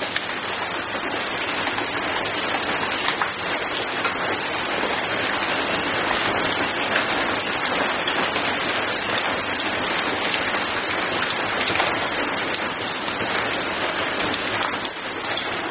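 Heavy rain falling and splashing: a dense, steady hiss of countless drops, with many small drop ticks through it.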